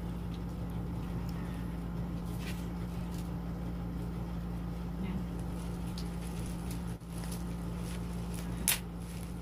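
Steady low hum of background noise, with a few faint ticks and one sharper click near the end.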